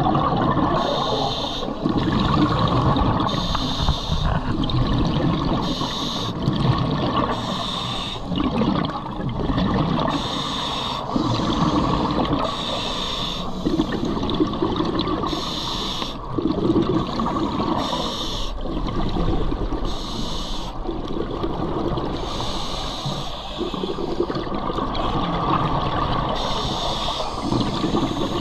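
Scuba diver breathing through a regulator underwater: a hiss on each inhale alternating with a gurgling rush of exhaled bubbles, repeating every couple of seconds.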